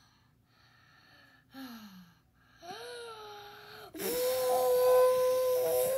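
A high-pitched cartoon voice: short faint whimpers and a falling cry, then about four seconds in a loud, breathy wail held on one pitch.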